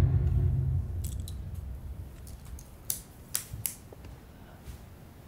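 A low rumble fades out in the first second, then a few sparse, light clicks of laptop keys being pressed.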